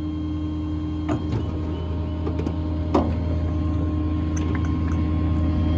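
Ford F550's 6.7 Power Stroke diesel idling with the PTO-driven hydraulic system running steadily while the crane outrigger lowers. A few light clicks come about a second in, and a sharper knock about three seconds in.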